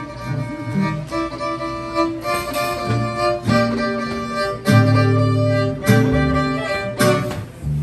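Live acoustic string trio: a fiddle plays the melody, with some long held notes, over two acoustic guitars strumming chords.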